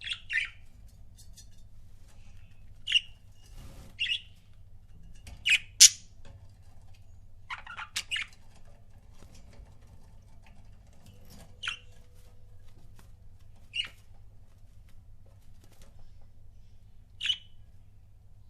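Budgerigars giving short, sharp chirps and squawks, some singly and some in quick pairs, with pauses of a few seconds between them; the loudest comes about six seconds in.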